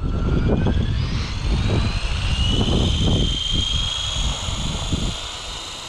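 Blade Fusion 360 Smart electric RC helicopter spooling up on its ultra slow soft start: the motor's whine rises in pitch over the first two and a half seconds, then holds steady. A gusty low rushing runs underneath and eases off about five seconds in.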